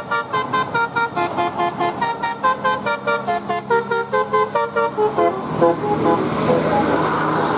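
Bus telolet horn, a multi-tone musical horn, playing a fast tune of short chord notes, about five a second, which stops about five and a half seconds in. A vehicle engine and road noise then grow louder.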